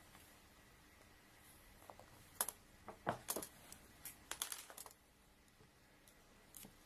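A quick run of sharp clicks and light metallic knocks, about two to five seconds in, from a hand tool being handled and worked.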